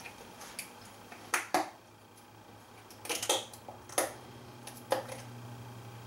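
Kitchen items being handled on a counter: about half a dozen sharp clicks and knocks of cartons, bottles or dishes being picked up and set down, over a steady low hum.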